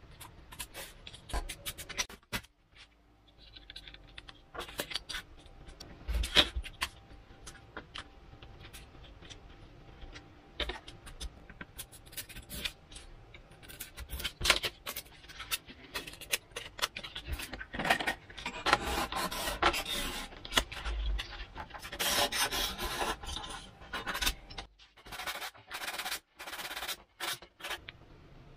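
Hands working a depron foam elevator on a wooden workbench while fitting a piano-wire stiffener: scattered clicks and handling noises, with longer stretches of rubbing and scraping about two-thirds of the way through.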